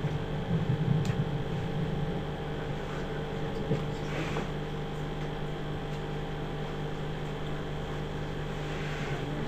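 Steady low hum of background noise, with a faint brief rustle about four seconds in.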